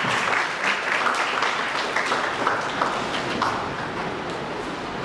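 Audience applauding, many hands clapping together, the applause slowly dying down.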